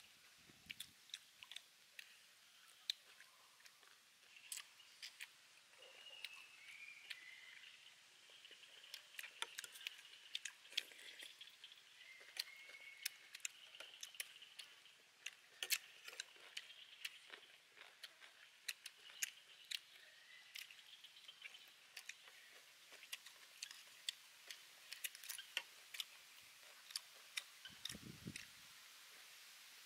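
Faint eating sounds: many small sharp clicks and smacks of chewing and of spoons and forks on plates, scattered irregularly. Near the end, a short low sound of sipping from a cup.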